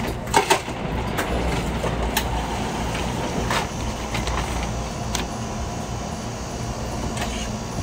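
Steady low machine rumble with a few scattered clicks and knocks, two of them close together just after the start.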